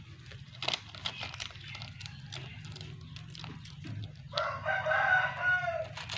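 A rooster crowing once: a single drawn-out call of under two seconds, starting a little over four seconds in, over a steady low hum and scattered light clicks.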